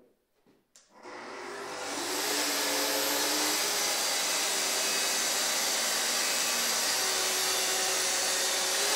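Festool plunge-cut track saw running along its guide rail, cutting through a wooden panel, with its connected dust extractor running alongside. The motor starts about a second in, comes up to speed over the next second and then runs steadily through the cut.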